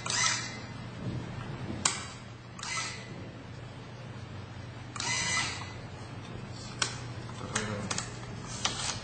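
Automated stamping-die rig running: a steady machine hum with intermittent sharp clicks and short hissing bursts, about seven events spread over the stretch.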